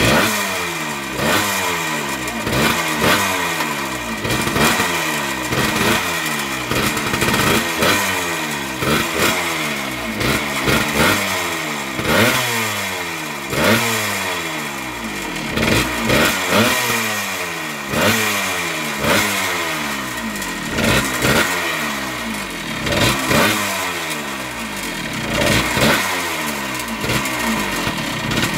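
1978 Yamaha DT100's single-cylinder two-stroke engine running on the choke just after starting, fresh piston and rings giving it good compression. Its revs rise and fall every second or two as the throttle is blipped.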